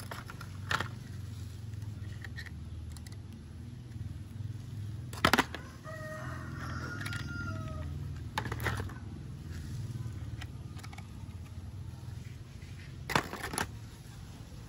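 Mud-covered plastic toy cars clacking against each other and the plastic basin as they are set down, a few sharp knocks over a steady low hum. A rooster crows in the background for about two seconds in the middle.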